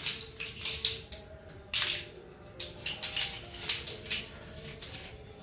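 Small plastic interlocking building blocks clicking and clattering as they are snapped together and shuffled on a tiled floor, in irregular sharp clicks.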